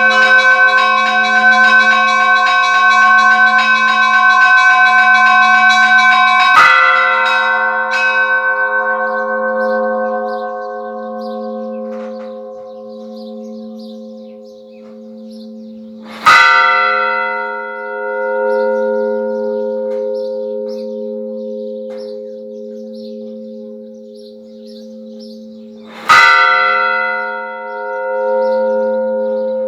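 Church bells ringing: a fast peal of rapid strokes stops about six seconds in, then a large bell tolls single heavy strokes about every ten seconds, three in all, each left to ring on and hum.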